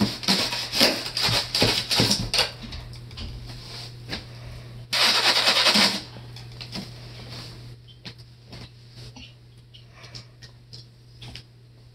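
A knife and a thin metal tool stabbing and scraping into the top of a white box to cut a hole: a quick run of sharp taps and knocks, then about a second of harsh scraping about five seconds in, then lighter scattered taps.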